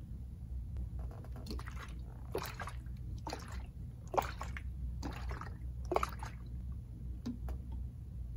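Homemade omija makgeolli sloshing back and forth inside a plastic bottle as it is rocked about five times, roughly once a second, mixing the settled rice sediment back into the cloudy wonju.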